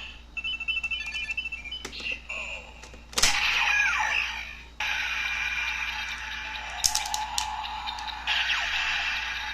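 Kamen Rider Build Ridewatch toy in the Ziku-Driver belt toy playing its electronic sound effects through the toy's small speaker. A short run of beeps gives way to a sharp click about three seconds in. An electronic voice call and transformation music follow.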